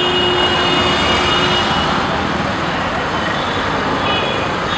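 Dense road traffic at a busy intersection: motorcycles, scooters, cars and buses running and passing in a steady wash of engine and tyre noise. A steady high tone sits over it for the first second and a half, then fades out.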